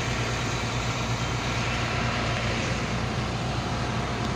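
Steady drone of a running vehicle: a low hum with an even rushing noise over it, unchanging throughout.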